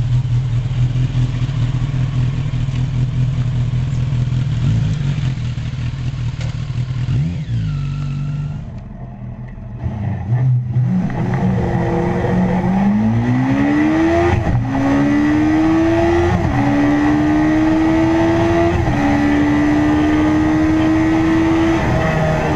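Kawasaki GPZ1000RX inline-four engine running at a steady speed, then, after a break, accelerating hard up through the gears: the engine note climbs and drops back at each of four upshifts, with each gear pulling longer than the last.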